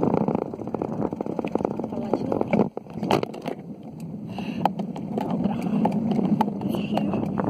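Wind buffeting the microphone of a handheld phone on a moving bicycle, with scattered clicks and knocks from handling and the bike. The rush drops out briefly near the middle, and a quick run of sharp clicks follows.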